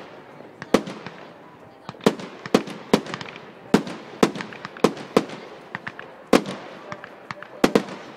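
Aerial fireworks bursting close overhead: a dozen or so sharp bangs in quick, irregular succession, each trailing off in an echoing rumble.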